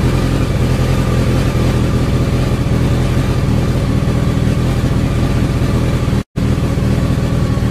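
Honda CBR1100XX Blackbird's 1137 cc inline-four engine idling steadily during its first start-up. The sound cuts out for a split second about six seconds in.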